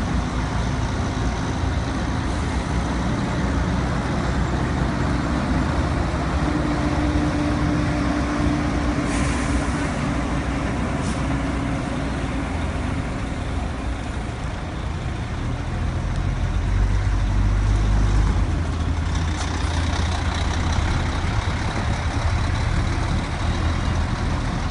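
Bus engines running in a terminal lot, a steady low rumble with a held hum. There are two short air-brake hisses about nine and eleven seconds in, and the low engine sound swells louder around sixteen to eighteen seconds in as a coach moves.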